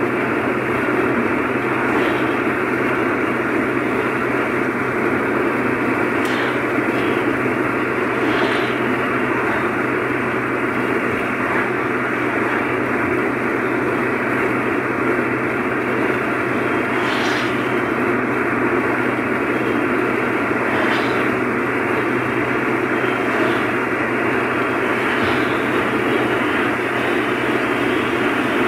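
Steady road, tyre and engine noise heard inside a car's cabin at motorway speed, with a constant low hum and a few brief faint ticks.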